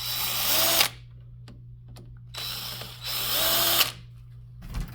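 Power drill-driver running in two short runs of about a second each, backing out the two screws of the antenna holder, the motor winding down at the end of each run. A short click near the end.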